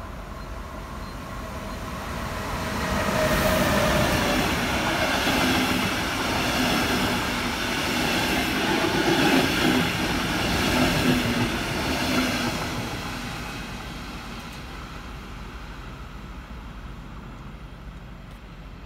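Red double-deck Regional-Express passenger train passing close by at speed. The rumble and wheel noise builds over the first few seconds, stays loud for about ten seconds with a regular clatter of wheels on the rails, then fades away.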